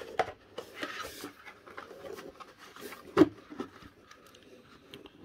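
Cardboard and plastic handling noise as blister-carded die-cast toy cars are lifted out of a corrugated cardboard box: scattered rustling and light clicks, with one sharper knock about three seconds in.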